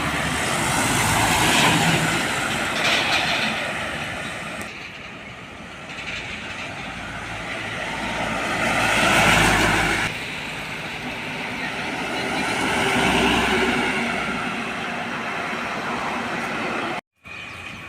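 Heavy trucks passing on a road one after another, each swelling and fading as it goes by. The sound cuts out briefly near the end.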